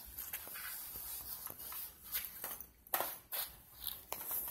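Irregular faint scuffs and shuffles of someone walking on a concrete floor, with a few small clicks.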